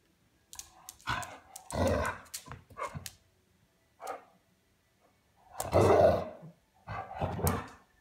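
Wolf pup barking in short bursts: a cluster in the first few seconds, one brief bark near the middle, then two longer ones near the end.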